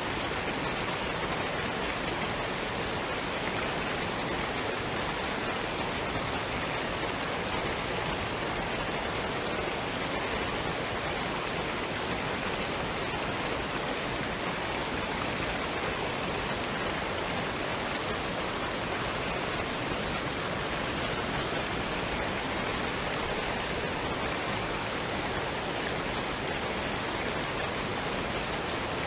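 Waterfall and stream water running: a steady, even rush that never changes.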